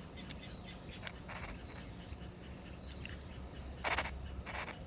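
Outdoor ambience dominated by a steady, high-pitched insect trill, with a few faint clicks and a short rustle about four seconds in, followed by a weaker one.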